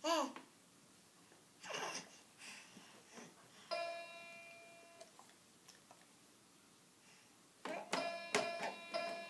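A baby gives short squealing vocal sounds, then a musical toy plays: one held note about four seconds in and a quick run of struck notes near the end.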